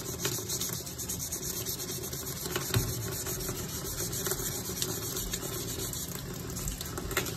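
Wet 400-grit sandpaper scrubbing over the handle of an old carbon-steel carving knife: a steady, wet, scratchy hiss.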